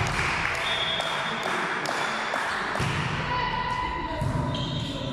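Voices of spectators and players talking and calling out in a large gym hall, with scattered light taps and thuds.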